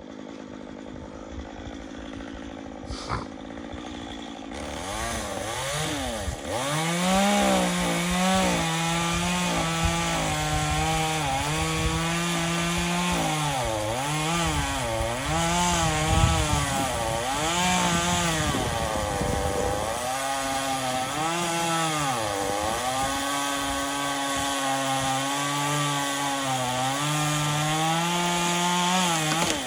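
Gas chainsaw running and cutting wood, louder from about five seconds in, its engine note dipping and recovering again and again as the chain bites into the cut.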